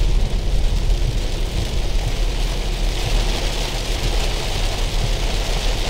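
Heavy rain drumming on a car's roof and windscreen, heard from inside the cabin over the steady low rumble of the car on the road.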